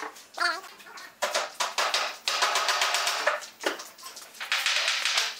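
Wood glue squeezed from a plastic squeeze bottle onto a pine board's edge, with two longer crackling, hissing squirts midway and near the end, among light knocks and taps of the boards being handled and a brief squeak near the start.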